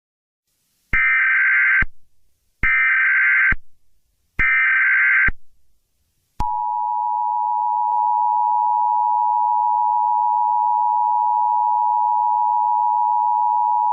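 Emergency Alert System signal: three short bursts of warbling SAME header data tones, each just under a second, then the long steady two-tone attention signal starting about six seconds in. It announces that an emergency broadcast is about to follow.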